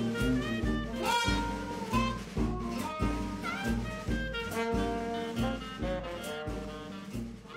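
Upbeat jazz-style background music with a steady beat of about two beats a second, getting quieter toward the end.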